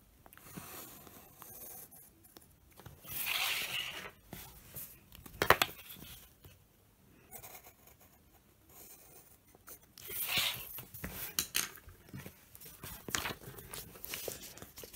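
Pencil scratching across paper in short strokes drawn along a plastic ruler, with the ruler and paper shifting on the table. A single sharp tap about five and a half seconds in.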